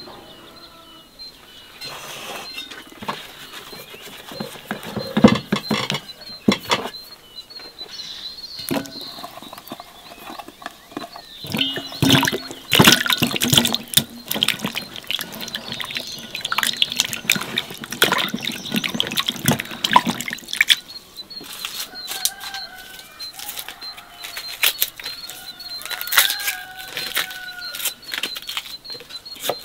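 Water splashing and sloshing in an enamel basin as tomatoes and greens are washed by hand, then a knife on a wooden board as vegetables are peeled and cut. A small bird chirps over and over throughout.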